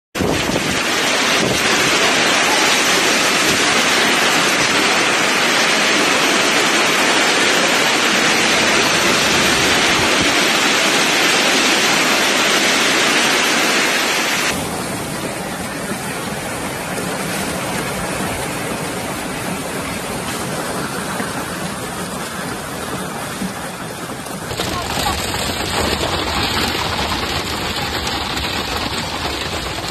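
Hailstorm: heavy hail and rain pouring down as a dense, steady hiss. It changes abruptly about halfway and again near the end, where it is heard from inside a car.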